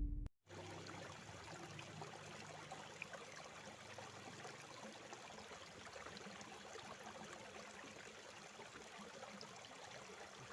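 Faint, steady sound of a river running over rocks.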